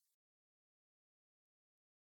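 Silence: a digital gap between two sound effects.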